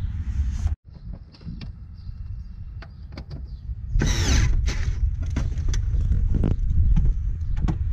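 A hand screwdriver and loose metal and plastic parts clicking and scraping while screws are worked on an intake heat shield in a car's engine bay, with a short squeaky scrape about four seconds in. Under it runs a steady low rumble of wind on the microphone.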